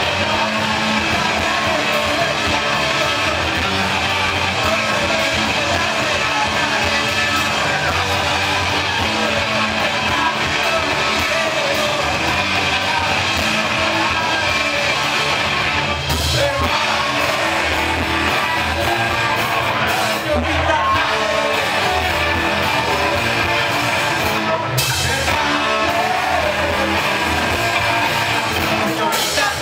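Live surf rock band playing: electric guitars and drums, with a singer's voice over them.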